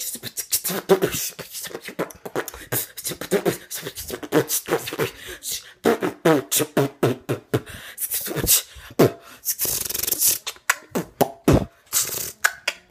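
A person beatboxing close to a phone's microphone: a fast, dense run of mouth-made percussive clicks and pops, mixed with short voiced sounds.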